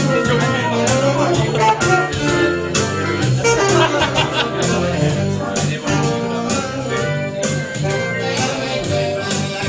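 Upbeat music with percussion keeping a steady beat.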